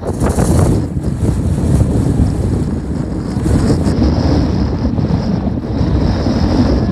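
Wind blowing across the camera microphone, a loud, low-pitched noise that starts suddenly and keeps on steadily.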